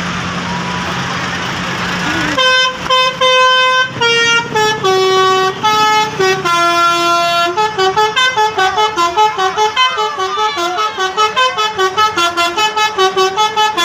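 Bus telolet horn, a multi-note musical air horn, playing a tune of stepped notes. It starts about two seconds in, after a steady hiss, and breaks into quick repeated notes in the second half.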